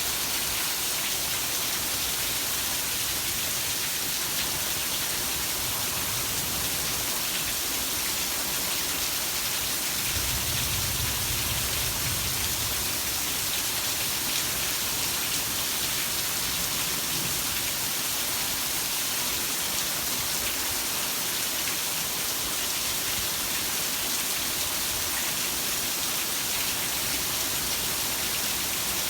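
Heavy rain falling steadily: a dense, even hiss of drops. A low rumble swells for a few seconds about a third of the way through.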